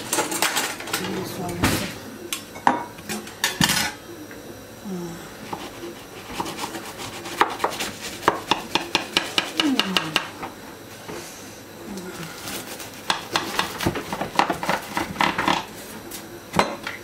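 A knife cutting through the crisp, flaky puff-pastry crust of a baked pie, crackling in quick runs of clicks, with the metal blade clinking and scraping against the glass baking dish.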